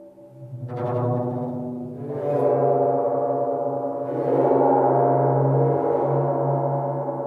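Slow contemporary acoustic music from a piece for six flutes, percussion and piano: held, ringing tones that build in three swells, about a second, two seconds and four seconds in, growing much louder.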